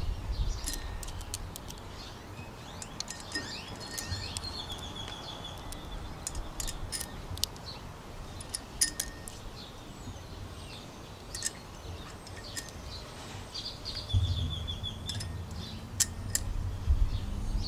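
Small metal ARP washers clicking and clinking lightly as they are dropped one by one over the studs of an aluminium cylinder head. Birds chirp in the background.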